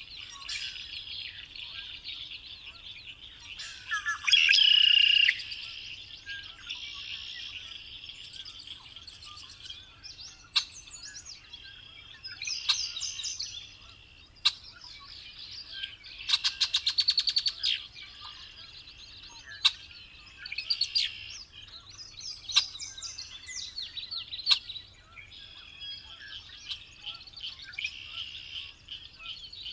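Male red-winged blackbird singing, repeating its song of short notes ending in a buzzy trill several times, with shorter calls between, over a steady high-pitched background.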